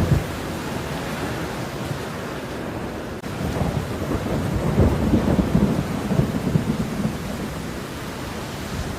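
Steady falling rain, with a low rumble of thunder that swells about three seconds in and dies away a few seconds later.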